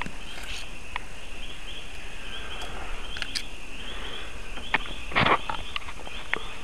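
A steady high chorus of trilling insects, with the crackle and rustle of footsteps through dry leaf litter and brush. The brush rustle is loudest about five seconds in.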